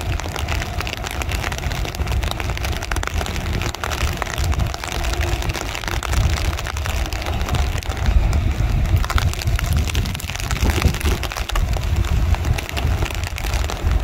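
Heavy rainforest rain falling steadily: a dense patter of countless drops over a low rumble.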